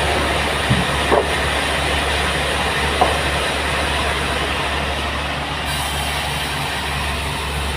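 Band sawmill running steadily: a low motor hum under an even rushing noise, with a few short squeaks about a second and three seconds in.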